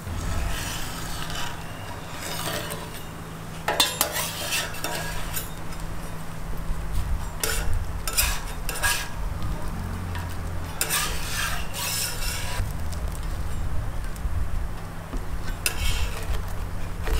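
Metal spatula scraping and clinking on a round metal crepe griddle as a lace crepe is worked loose and folded, in several short strokes, over a steady low hum.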